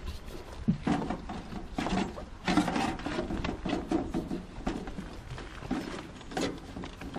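Plastic drain pipe being worked onto a downspout and into its fittings: an uneven run of knocks, scrapes and rubs of plastic on plastic.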